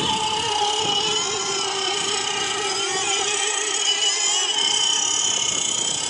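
Radio-controlled racing boat running at full speed across the water, its motor and propeller making a steady high-pitched whine that wavers slightly in pitch.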